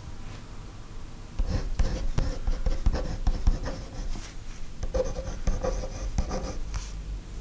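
Pencil scratching on paper in short writing strokes, starting about a second and a half in, with a brief pause around the middle, and stopping just before the end. A low steady hum runs underneath.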